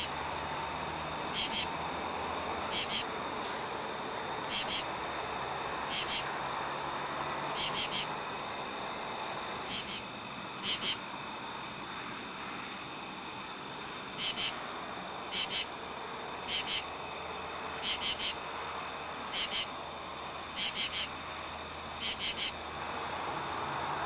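Male common true katydid (Pterophylla camellifolia) calling for females: harsh, high rasping phrases of two or three pulses (the 'katy-did' call), repeated about once every second and a half, with a pause of a few seconds near the middle.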